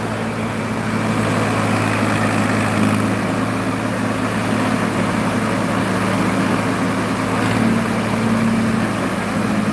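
Diesel engines of a Sonalika and a Farmtrac tractor hitched back to back for a tug-of-war, both running steadily with a constant low hum.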